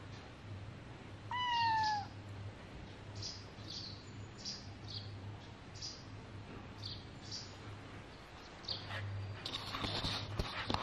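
Tabby kitten meowing once about a second in, a short, clear call that slides slightly down in pitch. Faint short high ticks sound throughout, and a few sharp clicks come near the end.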